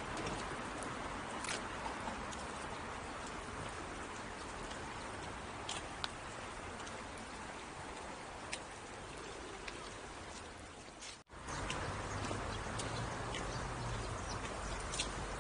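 Steady outdoor background noise with scattered light ticks and clicks. It breaks off abruptly for an instant about 11 seconds in, after which a low hum joins the noise.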